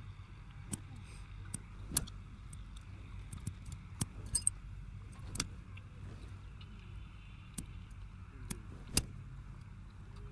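Barber's scissors snipping: a string of sharp metallic clicks at an irregular pace, the loudest about two seconds in and near the end, over a steady low background hum.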